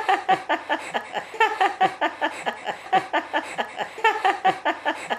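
A woman laughing hard and without a break, a long run of quick pitched 'ha-ha' pulses, about five a second.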